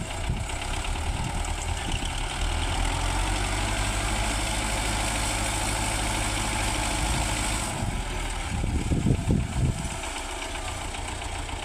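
Tractor engine running steadily. About eight and a half seconds in, a short run of loud low thumps comes through, and after that the engine runs on more quietly.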